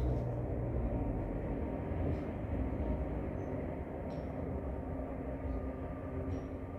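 A steady low rumble with a faint hum.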